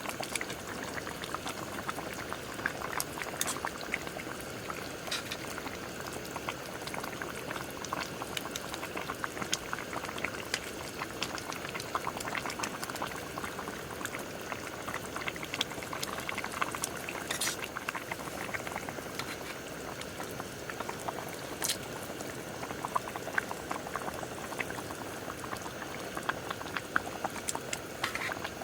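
Liquid bubbling at a steady boil, with a dense patter of small pops and an occasional sharper crackle.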